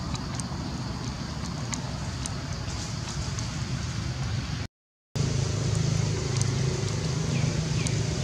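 A steady low mechanical hum, cut off completely for about half a second in the middle and louder after the break, with faint high ticks over it and a few short falling chirps near the end.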